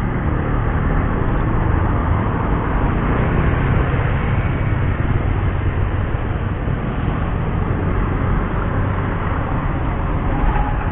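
Road traffic passing through a sharp bend: car and motorcycle engines and tyre noise, with a steady low rumble.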